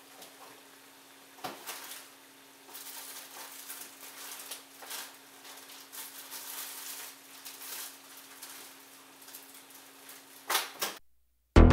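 Chicken and cherry tomatoes sizzling on low heat in a skillet, a crackling hiss full of small pops and ticks over a steady faint hum, with two louder pops near the end. Music with a beat cuts in right at the very end.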